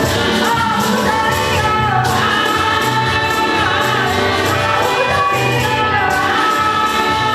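A choir singing a gospel hymn together over musical accompaniment, with many voices at once.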